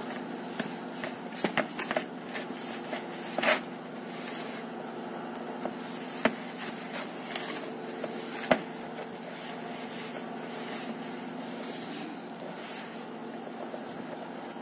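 Gloved hand working damp powdered dish-bar soap mix in a plastic tub, giving scattered soft scrapes and rubs with a few sharper clicks, over a steady low background hum.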